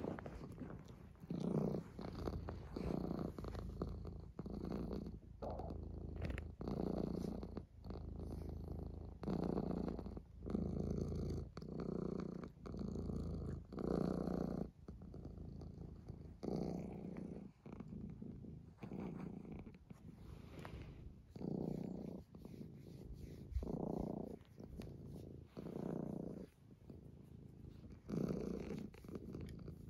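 Tabby cat purring steadily, in repeated louder pulses a second or two apart.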